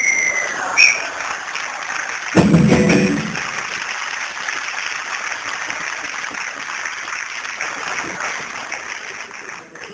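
Referee's whistle blown to end the improvisation: a short blast falling in pitch with a brief second chirp, followed by a theatre audience applauding steadily, with one loud low burst about two and a half seconds in.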